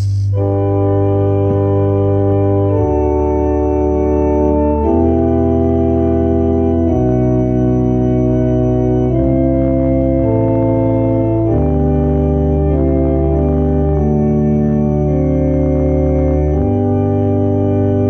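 Organ playing slow, sustained chords that change every couple of seconds over a deep held bass.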